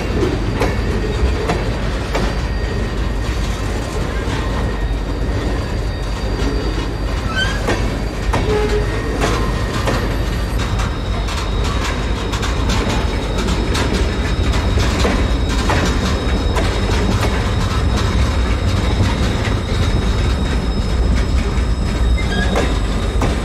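Freight train of tank cars rolling slowly past: a steady low rumble of wheels on rail, frequent clicks and clanks as the wheels cross rail joints, and a thin, high, steady wheel squeal.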